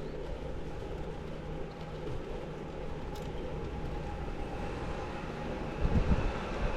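A train running past, a steady low rumble, with a louder low thump about six seconds in.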